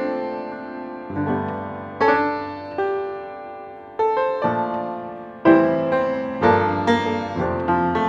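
Piano music: a melody of struck notes and chords, each ringing and fading before the next.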